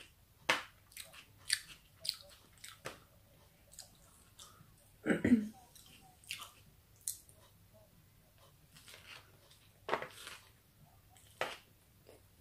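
Close-up mouth sounds of chewing a chicken fajita wrap: wet smacks and small crunches, irregular and on and off. A louder, lower sound stands out about five seconds in.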